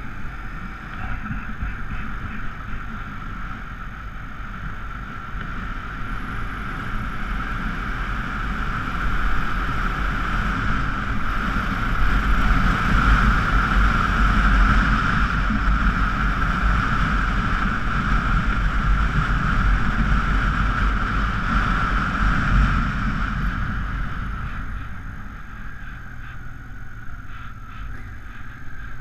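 Honda Africa Twin XRV750 V-twin engine running under way, with wind rushing over the microphone. The noise grows louder through the middle and eases off near the end.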